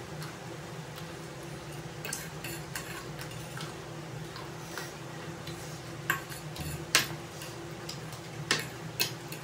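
A plastic serving spoon scraping and clicking against a platter as noodles are scooped, with a few sharp clicks in the second half, over a steady low hum.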